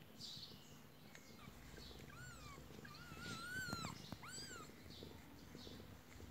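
Two-day-old kittens mewing: starting about two seconds in, four short, high, squeaky mews, each rising and then falling in pitch.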